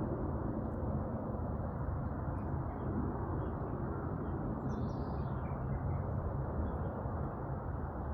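Outdoor garden ambience: a steady low rumble of background noise with a few faint bird calls, the clearest about five seconds in.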